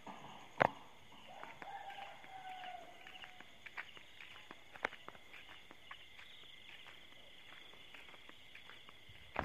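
Steady high-pitched chirring of night insects such as crickets, with scattered clicks and scuffs of footsteps and handling, one sharper knock about half a second in. A faint drawn-out call is heard between about one and three seconds in.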